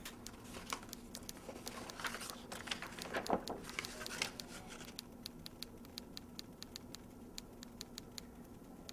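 Paper notepad pages rustling as they are flipped over, loudest about two to four seconds in, over steady, even clock ticking.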